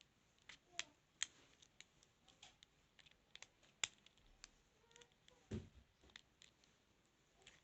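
Faint, irregular clicks of a lock pick and tension wrench working the pins of a padlock, with a duller knock about five and a half seconds in.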